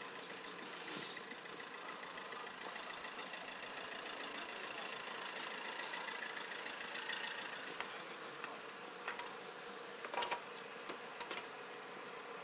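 A vehicle engine running steadily in the distance, a low even hum with a faint buzzing whine, with a few short clicks near the end.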